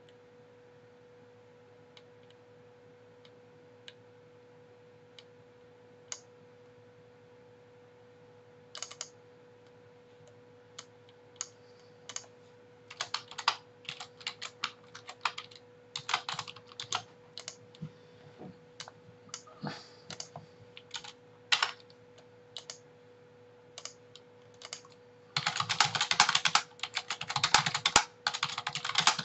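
Computer keyboard being typed on: a few separate clicks at first, then short bursts of keystrokes, building to a fast, dense run of typing near the end. A faint steady hum runs underneath.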